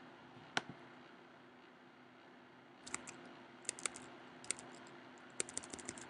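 Faint typing on a computer keyboard: a single click about half a second in, then irregular runs of key clicks from about three seconds in, over a faint steady hum.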